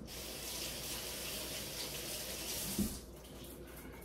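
Kitchen sink tap running as hands are rinsed under it, then turned off a little under three seconds in.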